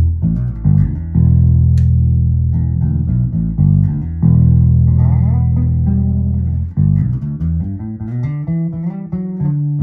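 1977 Guild Starfire II electric bass played fingerstyle on its bridge pickup: long sustained low notes at first, then a run of quicker notes over the last few seconds.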